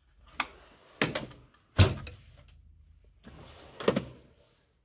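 Steel tool-chest drawers sliding shut and open on their runners, with several sharp knocks as they close and stop, the loudest about two seconds in.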